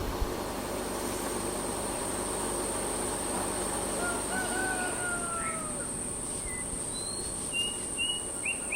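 Outdoor natural ambience: a steady rushing background with a continuous high-pitched insect drone. Midway a bird gives long descending whistled calls, and near the end a bird gives a quick series of short repeated chirps.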